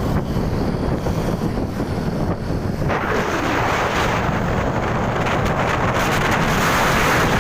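Wind buffeting the camera microphone, a loud, rough rumble and hiss that grows stronger from about three seconds in.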